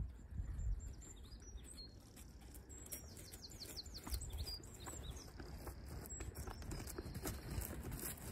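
A horse's hoofbeats on a chipped arena surface, growing clearer toward the end as the horse comes closer. Birds chirp in short high glides through the middle.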